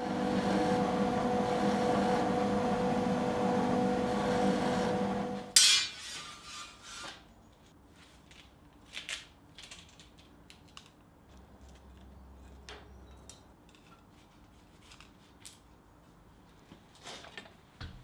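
Pillar drill running with a steady motor hum and whine. It cuts off about five and a half seconds in with a sharp clack and dies away. Faint, scattered clinks of steel being handled follow.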